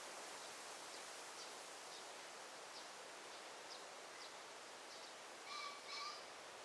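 Forest ambience: a steady soft hiss of leaves and air with faint high chirps, and near the end a bird calling two short notes about half a second apart.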